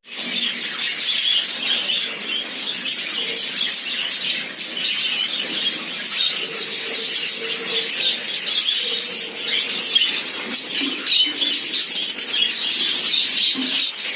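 A flock of budgerigars chattering continuously, many short high chirps overlapping.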